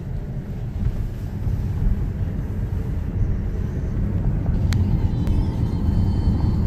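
Steady low rumble of a car's engine and tyres heard inside the cabin while driving. Two sharp clicks come about five seconds in.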